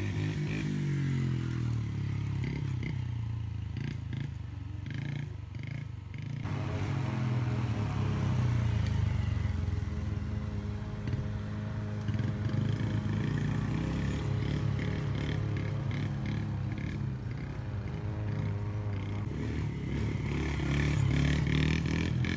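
Small child's dirt bike engine running, its pitch rising and falling with the throttle. The sound changes abruptly about six seconds in.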